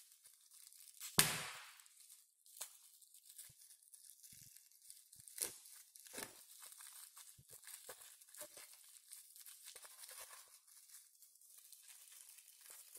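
Plastic wrapping being torn open and crinkled by hand, with one sharp rip about a second in, then scattered faint crackles and rustles as it is pulled apart.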